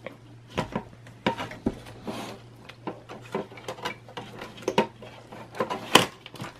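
Irregular clicks and clacks of a desktop motherboard being lifted and shifted against its steel case, with a louder knock about six seconds in as the board comes back down into the chassis.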